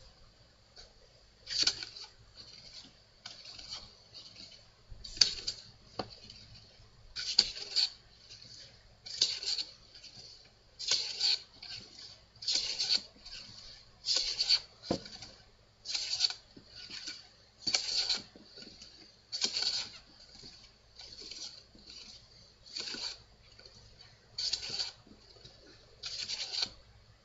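Hand plane taking repeated strokes along a wooden workbench leg: a short hissing swish of the shaving for each pass, about one pass every two seconds, with lighter strokes in between.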